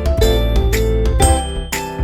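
Background music with a steady beat: plucked, chiming melody notes over a heavy bass.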